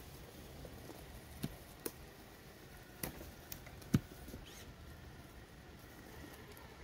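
Twigs and dry leaves crackling under an RC crawler's tyres: scattered light ticks and snaps, the sharpest about four seconds in, over a faint steady hiss.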